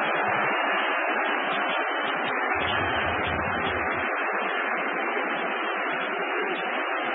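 Steady crowd noise from the stands of a football stadium, an even wash of sound that comes through dull and thin in a low-quality match broadcast. A low rumble is added for about a second and a half near the middle.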